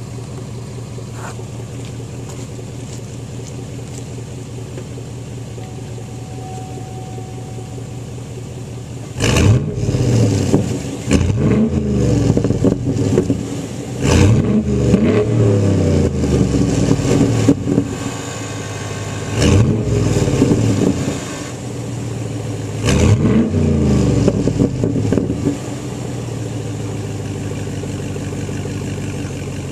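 2007 Chevrolet TrailBlazer SS's 6.0-litre LS2 V8 idling steadily through a Corsa Touring cat-back exhaust. About nine seconds in, the throttle is blipped about five times, each rev rising sharply and falling back. It settles back to idle near the end.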